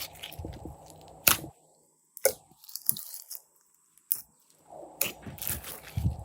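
Slime being pressed and poked by hand, giving crackly, squishy sounds with several sharp clicks and pops. Two brief near-silent gaps break it up.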